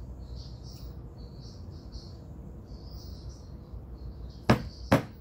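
Two sharp clicks about half a second apart near the end, from handling a small plastic bottle and gel tube. Repeated high chirping runs in the background over a low steady hum.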